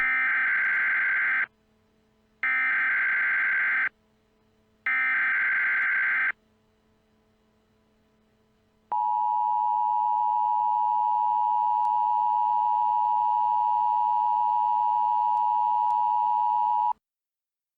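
Emergency Alert System header: three identical bursts of digital data tones, each about a second and a half long, then the two-tone attention signal held steady for about eight seconds and cut off suddenly, the sequence that opens a broadcast emergency alert.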